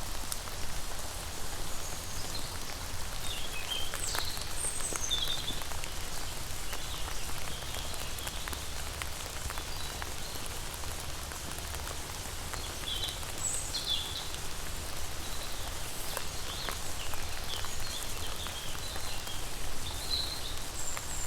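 Steady rain falling, with many crisp drop ticks hitting a surface. Scattered short high chirps come and go throughout.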